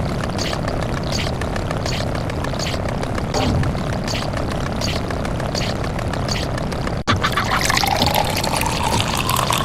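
A steady, noisy sound-effect loop with quick regular clicks, about three a second, cuts off abruptly about seven seconds in. It gives way to water pouring into a container, its pitch rising as the vessel fills.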